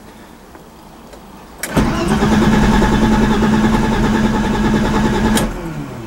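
A BMW E30's starter motor cranking the engine after a click, for about four seconds, without it catching, then winding down as the key is let go. The engine turns over but won't fire, and no fuel pump hum is heard: the owner takes it for a dead fuel pump.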